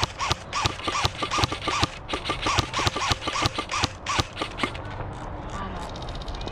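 Airsoft guns firing rapid strings of shots, several clicks a second, stopping about four and a half seconds in.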